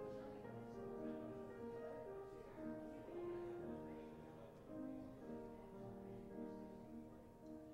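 Grand piano played softly, a gentle flowing melody of held notes over chords.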